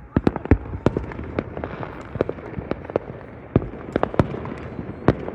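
Fireworks going off: a rapid, irregular string of sharp bangs, some louder than others, about a score of them in the space of five seconds.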